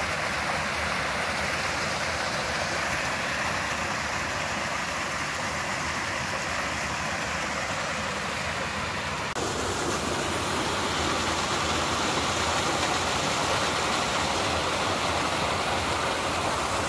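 Small waterfall on a rocky stream, water rushing steadily over the boulders. The rush grows a little fuller and deeper about nine seconds in.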